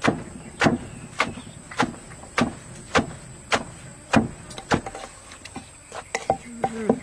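Wooden pestle pounding shredded green papaya in a clay mortar, making papaya salad: a steady run of dull knocks, a little under two a second.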